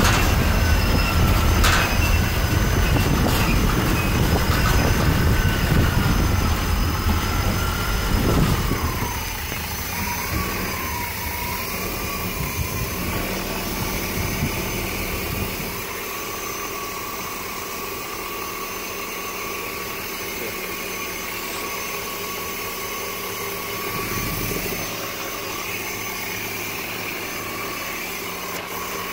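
Cab noise of a bus with a 350 small-block Chevy V8 on the move: a heavy rumble with a whine over it. About nine seconds in the whine wavers and falls away as the bus slows. About sixteen seconds in the rumble drops off, leaving a quieter, steady running hum.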